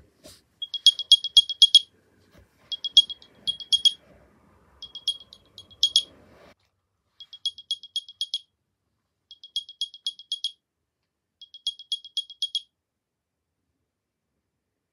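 Second-generation AirPods Pro MagSafe charging case's built-in speaker playing its Find My locator sound after being pinged to locate it. It comes as six bursts of quick, high chirps about two seconds apart, the last three quieter, and stops a couple of seconds before the end.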